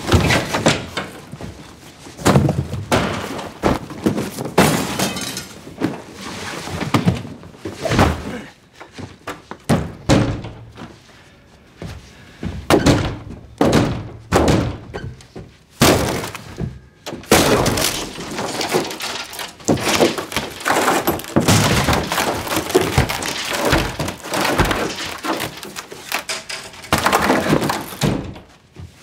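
A man repeatedly kicking and striking a wooden door, hard irregular blows coming in quick clusters with pauses between, as the door is being broken apart.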